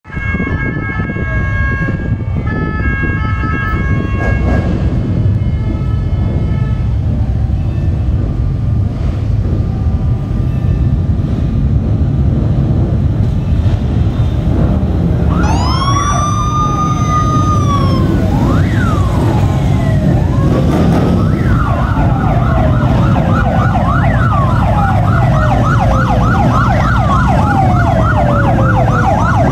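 Police escort sirens: a wail rises and falls about halfway through, then becomes a fast, repeating yelp, over the low rumble of many motorcycle engines, Harley-Davidson V-twins among them as the column rides past.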